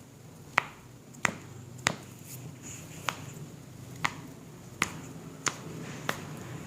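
A series of about eight sharp, brief clicks, a little under a second apart with a short pause after the third, from a chiropractic adjustment of the ankle and foot.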